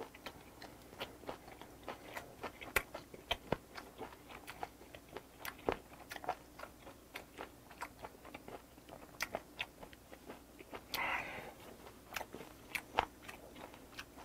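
Close-miked chewing of a mouthful of kimchi: an irregular run of wet clicks and crunches, a few a second, with a brief hiss about eleven seconds in.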